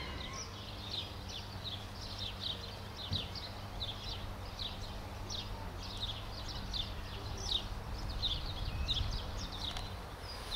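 Small birds chirping, a quick run of short falling notes, about two or three a second, over a steady low hum.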